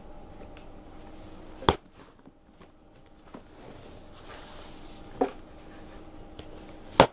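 A hard violin case being handled: three sharp clicks or knocks from its lid and latches, a little under two seconds in, about five seconds in and at the very end, with paper rustling between them. A faint steady hum lies underneath.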